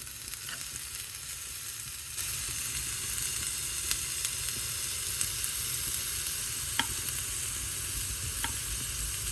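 Green beans sizzling in butter in a small pot, the sizzle stepping up louder about two seconds in, with a few light clicks.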